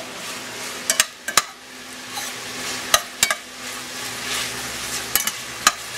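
Crumbled Italian sausage sizzling as it browns in a stainless steel pan, stirred with a metal slotted spoon that clinks sharply against the pan about seven times.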